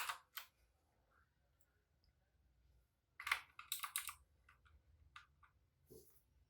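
AULA F2066 II mechanical keyboard keys being pressed: a couple of sharp clicks at the start, a quick burst of clacks about three seconds in, then a few lighter taps and a duller knock near the end.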